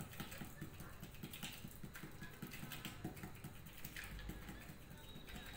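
Quick, irregular light taps of two fingertips patting a ball of anarsa rice-flour dough flat on a sheet of paper.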